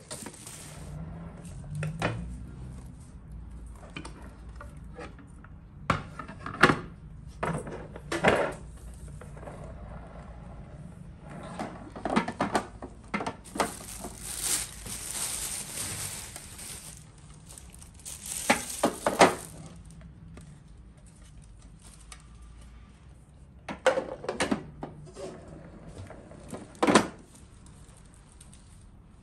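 Hard plastic serving-tray pieces of a rotating buffet set clacking and knocking as they are handled and fitted together, with scattered sharp clacks and a few longer rustling stretches.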